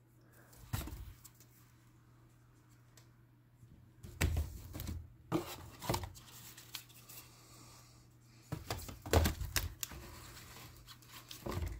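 Cardboard firework tubes and packages being picked up and shifted in a cardboard box, knocking and rustling against each other in several short spells with quieter gaps between.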